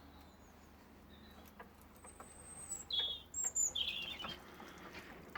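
Several short, high-pitched bird chirps and whistles, grouped about two to four seconds in, over a quiet background.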